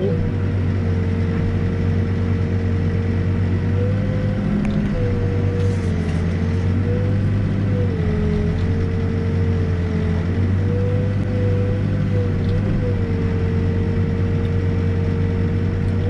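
New Holland backhoe's diesel engine and hydraulics running steadily, heard from inside the cab, as the boom and bucket are worked. A steady whine over the low engine drone sags slightly in pitch a few times as the load changes.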